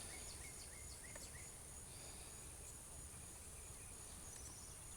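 Faint outdoor ambience: a steady, high-pitched insect drone, with a few short chirps in the first second and a half over a low rumble.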